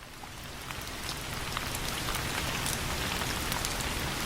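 Steady rainfall, a dense hiss with individual drops ticking through it, fading in over the first second or so.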